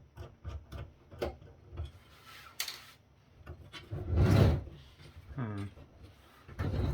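Handling noise from working on a steel-framed electronics chassis: a run of small clicks and taps, a brief hiss, then heavier scraping rubs and knocks, loudest about four seconds in.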